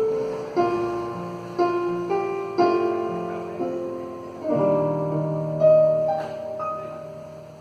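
Instrumental intro to a gospel song: chords struck about once a second, each ringing and fading, with a final chord held and dying away near the end.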